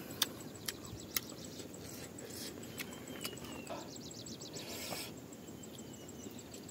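Quiet hillside ambience: a few faint bird chirps and a short, rapid insect trill over a low steady background, with a few soft clicks from chewing and eating by hand in the first second or so.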